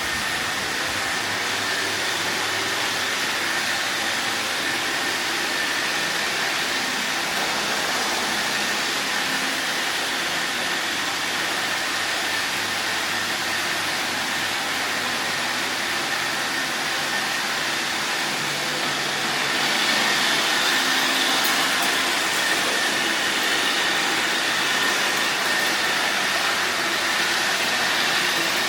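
Robot vacuum cleaner running: a steady whirring hiss with a faint high whine, growing louder about two-thirds of the way through.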